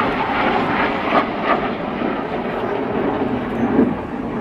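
Jet engines of a formation of Red Arrows BAE Hawk jets flying past: loud, steady jet noise.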